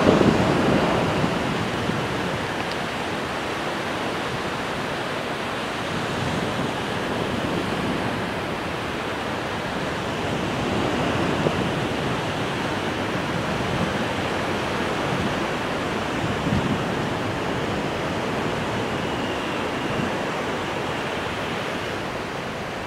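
Steady rushing noise of breaking surf and wind over the microphone of an iPod camera carried aloft on a kite, swelling and easing slowly.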